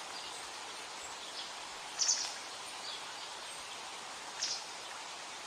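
Steady rushing of a flowing river, with birds calling over it: two short, high chirps about two seconds in and again around four and a half seconds, and a few fainter calls between.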